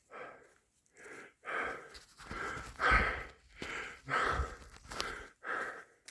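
A person breathing hard and fast through the mouth, steady in-and-out puffs about every half second, as after riding a mountain bike uphill.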